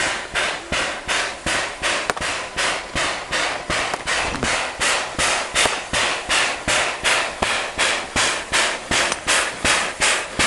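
Chinese steam locomotive working under steam, its exhaust chuffing in sharp, even beats about three a second.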